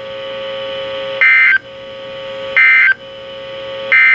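NOAA Weather Radio's EAS digital data signal (SAME): three short, loud squawks about 1.3 seconds apart. Coming right after the warning's last words, these are the end-of-message bursts that close the alert. Between the squawks a steady low tone grows louder.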